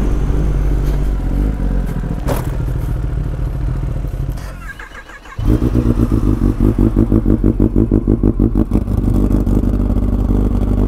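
Kawasaki ZX-10R inline-four engine running at low revs as the bike rolls slowly, with a sharp click a little over two seconds in. The sound drops away briefly about halfway through, then a superbike engine idles loudly close by with a fast, even pulsing.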